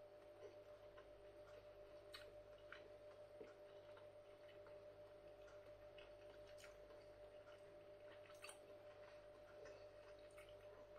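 Near silence: room tone with a faint steady hum and a few faint, irregular mouth clicks from chewing.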